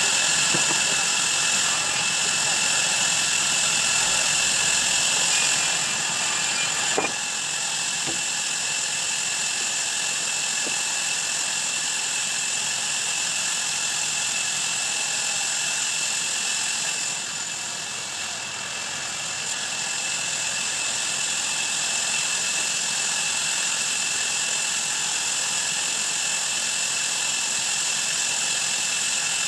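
Sawmill band saw running with a steady high whine. A sharp click about seven seconds in, after which it runs a little quieter.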